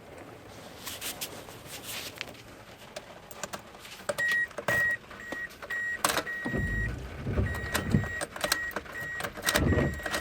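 A 2006 Toyota Corolla's key-reminder chime beeping steadily about twice a second, starting about four seconds in, after a few clicks of the new key going into the lock. Twice a low rumble rises under the beeping.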